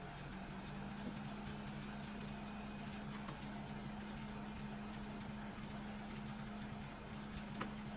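Steady low machine hum over an even hiss, with one small click near the end.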